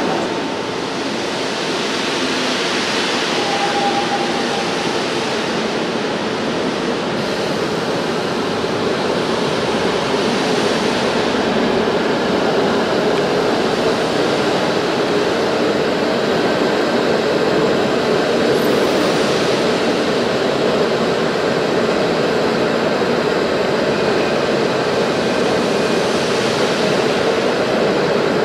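Steam locomotive 555.0153, an ex-German class 52 2-10-0, letting off steam in a loud, steady hiss that grows a little louder over the first several seconds.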